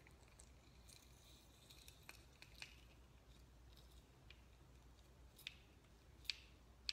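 Faint, scattered clicks and creaks of a green plastic handheld citrus squeezer being pressed repeatedly on half a key lime, with a few sharper ticks near the end.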